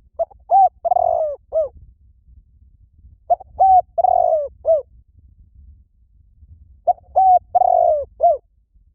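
Spotted dove cooing: three identical phrases about three and a half seconds apart, each a short coo, a second coo, a longer rough middle coo and a short closing coo.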